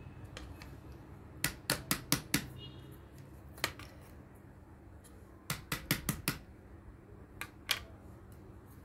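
Sharp clicks of stiff board pieces from a craft kit being handled and fitted together. They come in two quick runs of about five clicks, with a few single clicks between and after.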